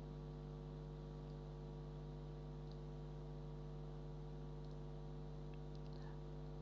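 Steady electrical mains hum, a stack of low buzzing tones picked up by the recording microphone, with a few faint computer mouse clicks about a third of the way in and near the end.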